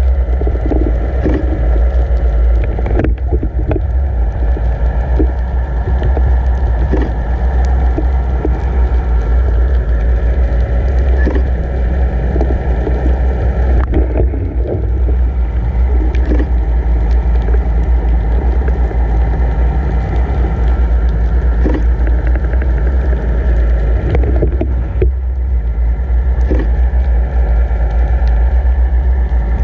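Underwater audio from a camera towed behind a boat: a steady low rumble of the towing boat's motor and water rushing past the housing, with scattered short clicks and knocks.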